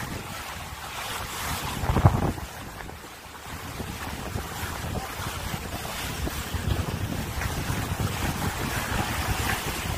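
Wind buffeting the microphone over the rush of choppy sea along the hull of a sailing yacht under sail, with one louder burst about two seconds in.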